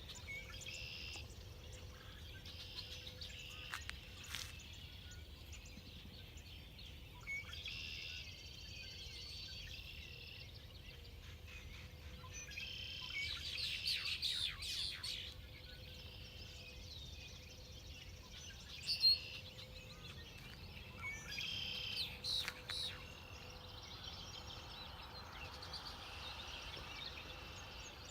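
Wild birds chirping and singing in repeated short phrases, with a few sharp clicks, the loudest about two-thirds of the way through.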